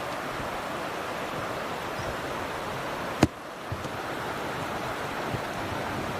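Steady rushing of river water, with a single sharp click about three seconds in.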